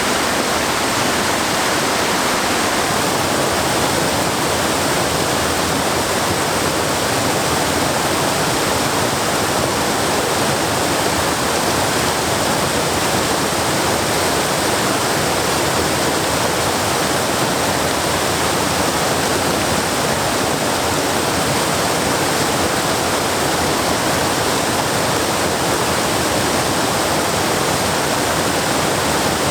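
Waterfall: water pouring steadily over rocks and cascading into a pool, a loud, even rush with no let-up.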